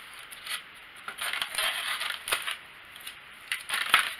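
A drone landing-gear leg being worked out of its polystyrene foam packaging insert: irregular rubbing and scraping of the part against the foam, with a sharp click about two seconds in and another near the end.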